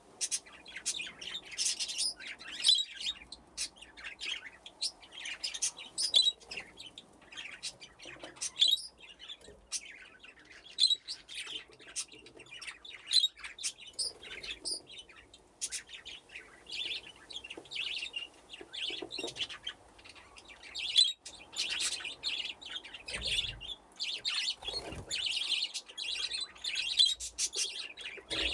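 A flock of budgerigars chirping and chattering continuously, with many quick overlapping chirps and a few sharp clicks.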